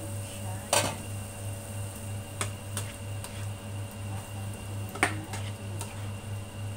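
A glass pan lid set down on a countertop with a sharp clack about a second in, then a spatula stirring vegetables in a nonstick frying pan, with light knocks against the pan and one sharper knock about five seconds in. A low hum pulsing about three times a second runs underneath.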